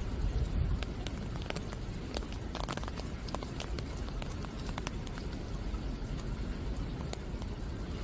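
Rain falling at night, with many irregular drops tapping on leaves over a steady low rumble.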